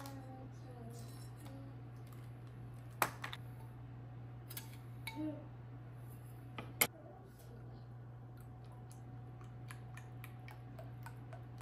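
Small kitchen handling sounds: a few sharp clicks and knocks of a metal spoon against a glass jar and a bowl, the loudest two about three seconds and seven seconds in, over a steady low hum.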